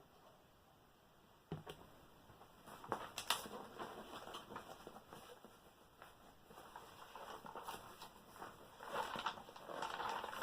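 A diamond painting canvas being handled: rustling with scattered clicks and taps, starting about a second and a half in and getting busier toward the end.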